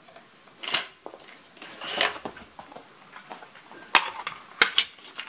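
A plastic cassette tape case being handled in a clear plastic sleeve: scattered clicks and short rustles, the sharpest clicks about four seconds in.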